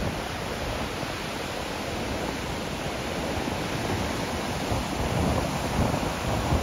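Ocean surf: waves breaking and washing up the beach in a steady rush that grows a little louder after about four seconds.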